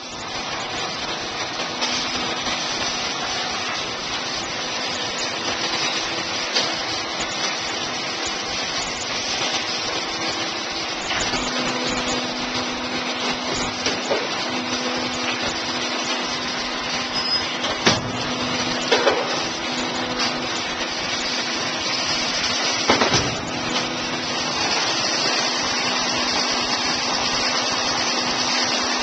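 Anis Trend automatic baler running through its bale tie cycle: a steady hydraulic machine hum with a few sharp clanks, about two-thirds of the way in and again a few seconds later.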